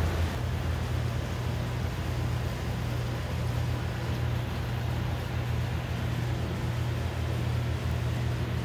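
A steady low machine hum with an even hiss over it, unchanging throughout.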